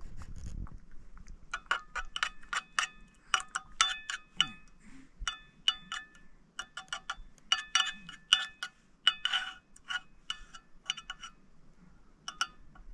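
A metal spoon tapping and scraping against a plate as it stirs and mashes soft cooked rice, in a quick uneven run of clinks. Each clink leaves the plate ringing briefly with a bell-like tone.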